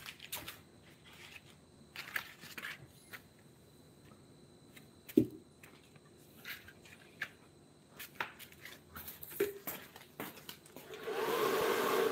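Scattered clicks and knocks of objects being handled, with one sharp knock about halfway through; near the end a small electric motor tool starts up with a rising whine and then runs steadily.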